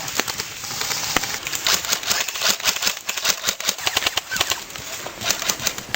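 Airsoft guns firing: a rapid, irregular run of sharp clicking shots, thickest around the middle and again near the end.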